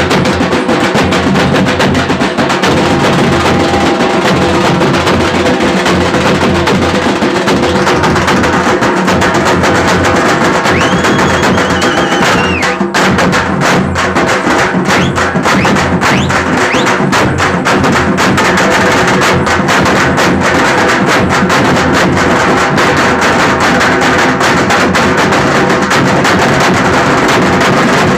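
A group of dappu frame drums beaten with sticks in a fast, dense folk dance rhythm, loud and close. A brief high tone cuts in near the middle.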